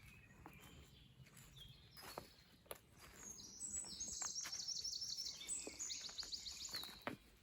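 Wild songbirds singing, with fast runs of high repeated notes in the second half. A few sharp clicks and rustles are heard in between.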